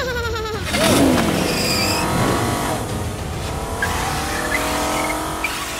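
Race-car engine sound effect revving, its pitch sliding up and down, loudest about a second in.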